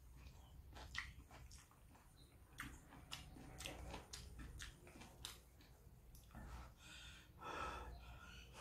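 Faint sounds of a person eating instant noodles with chopsticks: chewing with small scattered clicks, then a longer breathy slurp of noodles near the end.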